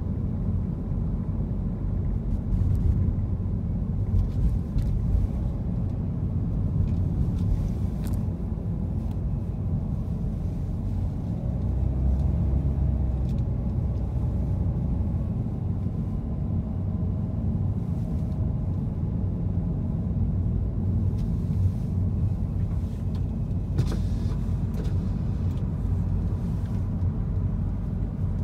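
Car driving on city roads, heard from inside the cabin: a steady low rumble of engine and tyre noise, with a few faint clicks.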